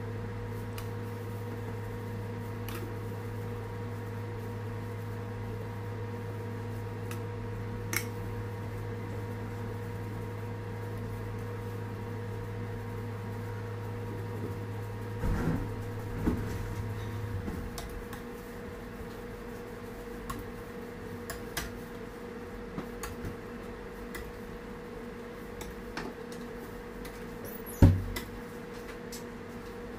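Metal palette knife and scraper tapping and knocking against the cake board while whipped cream is spread on a cake, over a low steady hum. The hum's deepest part stops a little over halfway through, and the loudest knock comes near the end.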